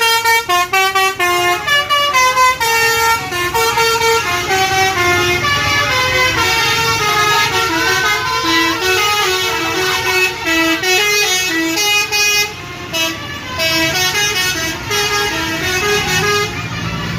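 Bus 'basuri' musical horn playing a fast tune of short notes that step up and down in pitch, the telolet horn sounded as a melody.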